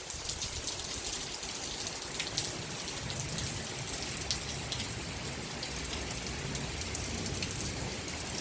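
Heavy rain falling, a dense hiss with many sharp drop impacts. A low rumble joins about three seconds in.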